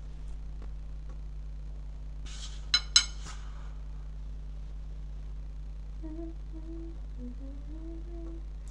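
Two sharp clinks about three seconds in, from a glass nail polish bottle being handled. From about six seconds a girl hums a gliding tune, all over a steady low electrical hum.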